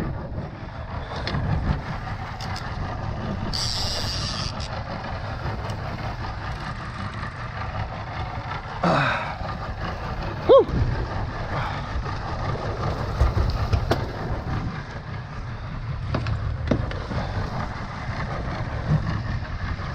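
Outboard motor running at trolling speed, a steady low rumble under the rush of water and wind. A short hiss comes about four seconds in, and a brief squeal near the middle.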